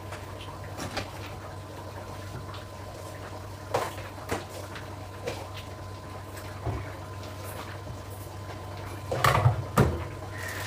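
Kitchen cabinet door being opened and things handled: scattered light knocks and clicks, then a louder cluster of clattering knocks near the end, over a steady low hum.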